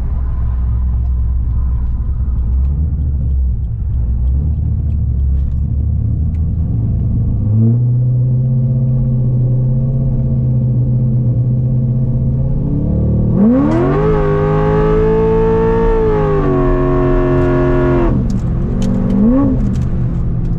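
Cammed LS V8 of a 2004 C5 Corvette heard from inside the cabin while driving: a low, steady drone that steps up in pitch about a third of the way in. About two-thirds in the revs climb quickly and hold high for about five seconds under hard acceleration, then fall as the throttle is lifted, with one short rev rise and fall near the end.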